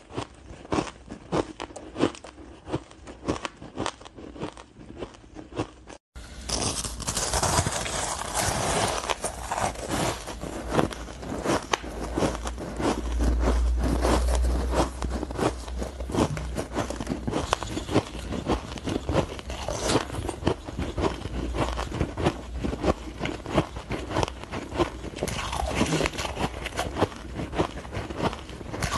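Close-miked crunching of powdery frozen ice as it is bitten and chewed, a dense run of small crackly crunches. It cuts out briefly about six seconds in and comes back louder.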